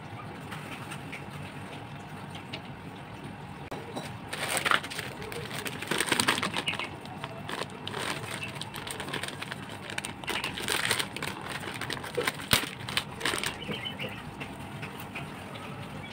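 Plastic packet holding a saw chain crinkling and rustling in the hands as it is handled and opened, in a run of irregular short bursts.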